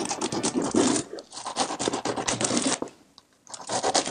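Knife sawing through the crisp, flaky baked pastry of an apple strudel on a wooden cutting board, the thin layers crackling and crunching. The crackling comes in three runs, with short pauses about a second in and about three seconds in.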